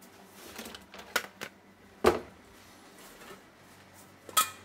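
Kitchenware being handled: a few scattered knocks and clinks, the loudest a dull knock about two seconds in, then a quick run of clinks near the end.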